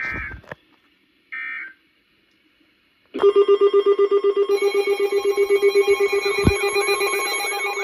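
Short digital data bursts of the SAME end-of-message code, then from about three seconds in, electronic alert tones start: a loud rapid pulsing beep, soon joined by further steady beeps and a warbling, swooping tone, as weather alert radios sound their alarms together.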